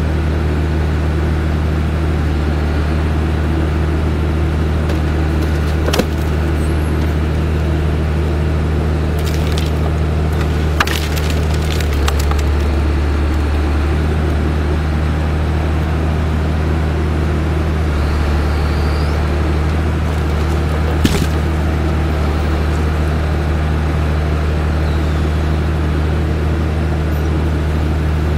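Skogsjan forestry harvester's diesel engine running steadily at constant speed, with a few short sharp knocks from the crane and harvester head as they swing, about six seconds in, around eleven seconds and near twenty-one seconds.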